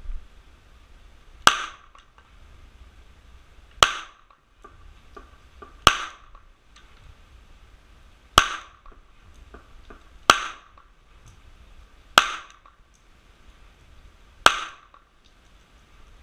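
Glock 17 9mm pistol firing seven single shots, roughly two seconds apart, each a sharp report with a short decaying tail.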